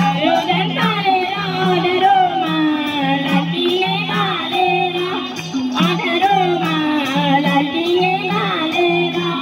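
Nepali folk song with a singing voice over a steady repeating beat, playing as music for a dance.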